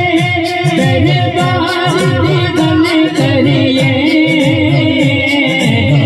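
Devotional kalam sung without instruments: a lead voice holds long, wavering notes over a group repeating a low, rhythmic zikr chant about twice a second.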